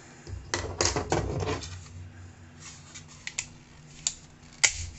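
Plastic parts of a Super Bang toy machine gun clicking and clattering as they are handled and fitted into the gun's body: a quick run of clattering clicks about half a second in, then a few single sharp clicks, the loudest near the end.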